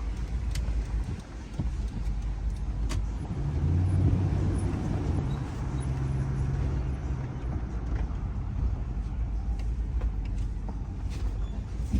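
A van's engine humming and road noise heard from inside while driving, the engine hum growing louder for a few seconds near the middle.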